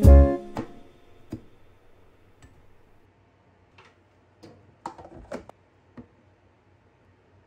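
Kitchen knife clicking against a cutting board in a few faint, irregular taps as a tomato and a boiled egg are sliced, with background music dying away in the first second.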